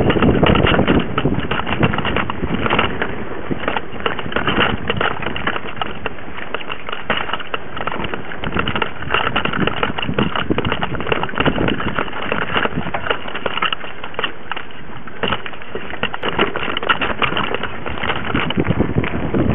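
Mountain bike ridden over rough forest singletrack, recorded from a camera mounted on the bike: continuous irregular rattling and clatter from the bike and mount over bumps, with the tyres crunching on the dirt trail.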